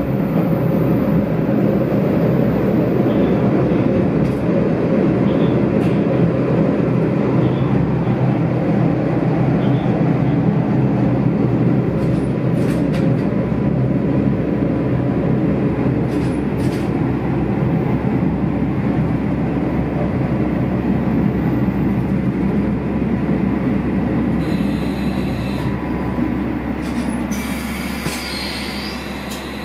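Cabin noise of a diesel railcar: steady engine hum and wheel-on-rail rumble as the train runs in and slows at a station. Toward the end the running noise eases off and a brief hiss comes in.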